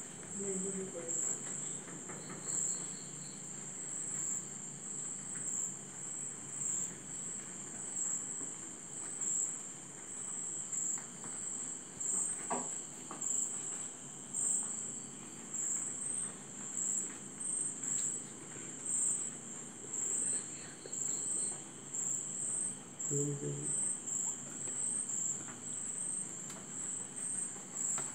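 Insects chirping in a steady, high-pitched, pulsing trill throughout, with a single light tap about halfway through.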